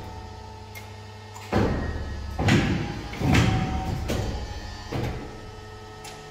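Fuji 1320-4P paper and board guillotine cutter running: a steady low motor hum, then four heavy mechanical strokes with thuds, each dying away quickly, about one and a half, two and a half, three and five seconds in, as the knife and clamp cycle.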